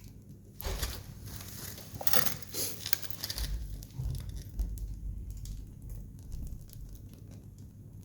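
Wood fire crackling, with scattered sharp pops and two louder crackling flurries, one about half a second in and one around two seconds in.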